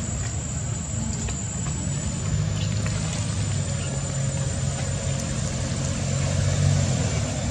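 An engine running steadily, a low even hum that swells a little near the end, with a thin high whine over it.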